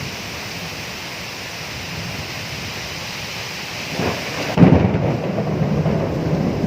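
Steady rain falling, then a sudden thunderclap about four and a half seconds in that rolls on as a loud, low rumble of thunder.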